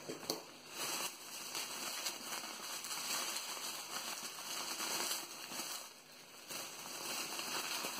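Plastic bubble wrap crinkling and crackling as it is pulled open by hand, briefly quieter about six seconds in.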